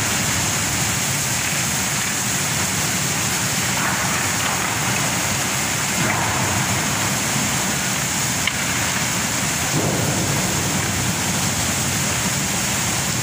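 Coal pouring steadily from a shiploader's conveyor spout into a ship's steel cargo hold: an even, unbroken rush like heavy rain.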